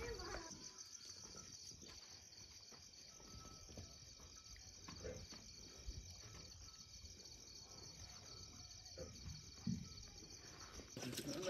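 Crickets chirping steadily in a fast, even trill at night, with a few faint low knocks in the background.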